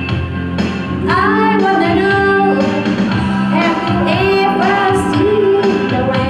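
A woman singing a pop song into a handheld microphone over a karaoke backing track with a steady drum beat; her voice comes in about a second in.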